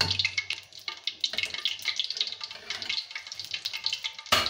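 Hot cooking oil sizzling and crackling in a steel pan, heating up for frying. There is a sharper, louder burst of noise just before the end.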